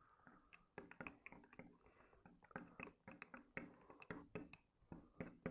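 Faint, irregular light clinks of a spoon stirring a hot drink in a glass cup, a few small taps a second.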